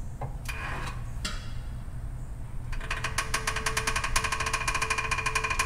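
A 5.9L 360 Magnum V8 turned over slowly by hand from the crank bolt, with the torque converter unbolted from the flex plate. After a couple of knocks, rapid even clicking with a thin ringing screech starts about three seconds in. This is the little screech the engine still makes with the transmission disconnected.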